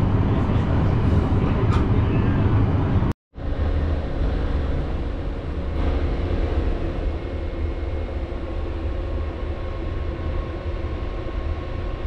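Steady low rumble and hum inside the cars of the Sunrise Express, a 285 series electric sleeper train. The sound cuts out suddenly for a moment about three seconds in, then returns a little quieter.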